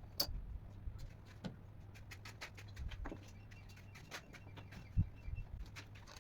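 Irregular light clicks and taps of hand tools being handled while woodworking, with one sharper knock about five seconds in, over a steady low hum.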